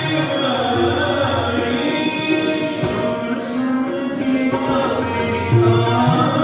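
Background music: singing over sustained instrument tones, with a few low drum strokes.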